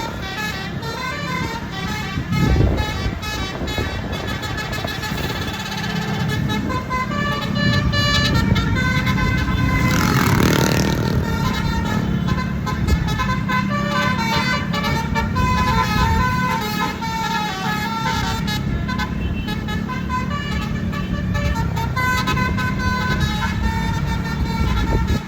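A bus's 'basuri' telolet horn playing a fast tune of short stepped notes in repeating runs, over a steady low engine drone, with a brief rush of noise about ten seconds in.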